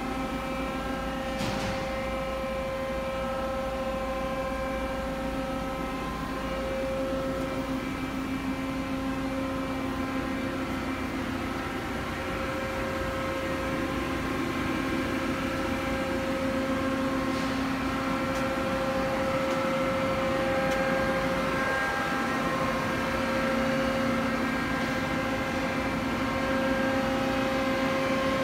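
Mori Seiki SL-65A CNC turning center running under power: a steady machine hum made of several pitched tones, growing slightly louder near the end, with one light click about a second and a half in.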